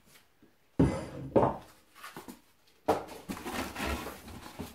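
A heavy metal lathe part set down with a sudden clunk about a second in and a lighter knock just after, then cardboard packaging rustling and scraping from about three seconds in as hands dig through the box.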